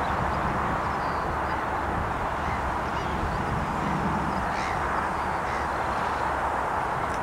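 CAT Challenger RG655D Rogator self-propelled crop sprayer running steadily as it drives across the field, an even, unchanging engine and machine noise heard from a distance.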